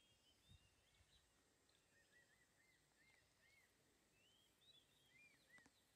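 Faint birds calling: many short, arched chirps repeated in loose runs over a low hiss of outdoor ambience.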